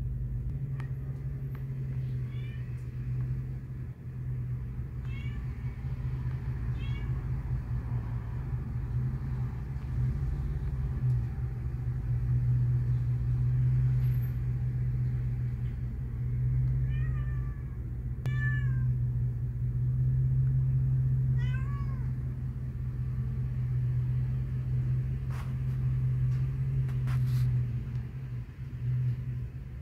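A cat meowing in short calls, about six of them, spaced seconds apart. A steady low hum runs underneath and is louder than the calls.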